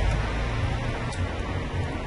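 Steady low background hum, with a faint click about halfway through as an egg is cracked into a plastic mixing bowl.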